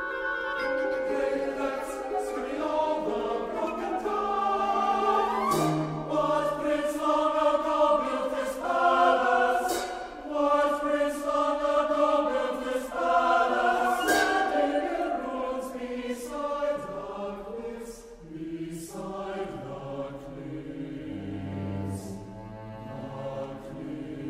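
A mixed choir singing in English with a chamber ensemble of flute, oboe, harp, percussion and cello, in a contemporary classical choral piece. Sharp struck percussion accents punctuate the voices several times.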